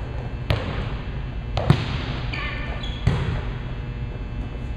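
A volleyball being passed and set back and forth: several sharp slaps of the ball on hands and forearms, roughly a second or more apart, the loudest a little under two seconds in.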